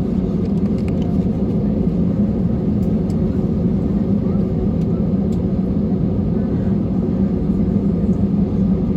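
Steady low drone inside the cabin of an Airbus A321 airliner: jet engine and airflow noise, even in level throughout.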